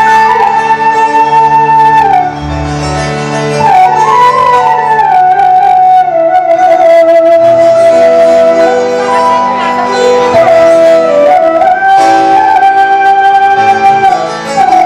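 Bamboo suling flute, amplified through a PA, playing a melody of long held notes with slides between them over a dangdut band's keyboard and bass.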